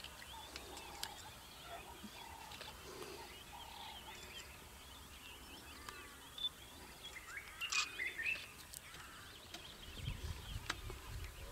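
Wild birds chirping and calling in the bush: many short, high chirps, with one louder call about eight seconds in, and a low rumble near the end.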